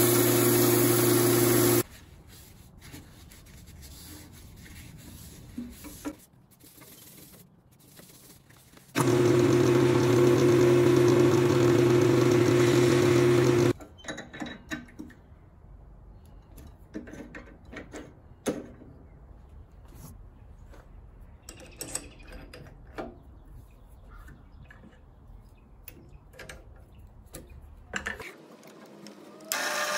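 Wood lathe running with a steady motor hum while the spinning ash blank is hand-sanded; the hum cuts off about two seconds in and comes back from about nine to fourteen seconds. In between and afterwards, only light clicks and knocks from handling the workpiece.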